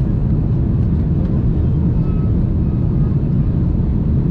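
Jet airliner cabin noise during the climb after takeoff, heard from a window seat beside the wing of an Airbus A330-300: a steady, loud, low noise of engines and airflow.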